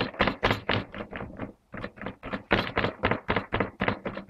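Palm patting and pressing date-filled cookie dough flat on a wooden board: quick repeated pats, about five a second, with a short break about a second and a half in.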